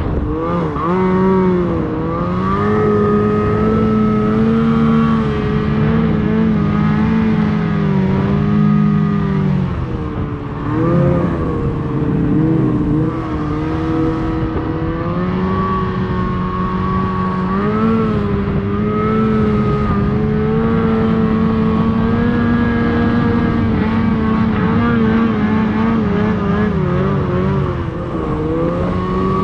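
Ski-Doo Summit XP snowmobile's two-stroke engine running under throttle, its pitch rising and falling as the revs change, with short drops in revs about ten seconds in and again near the end.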